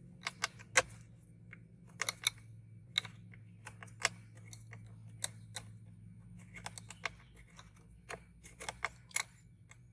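Scattered small clicks and taps of an L-shaped hex key turning and seating the bolts of a car's steering column cover, over a steady low hum.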